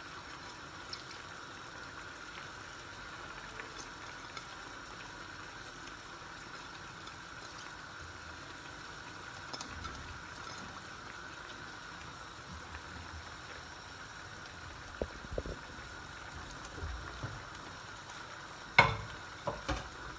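Tomato-and-pepper sauce frying uncovered in a pot, a steady sizzle and bubbling. A few light knocks of a utensil against the pot, with one sharp clack near the end.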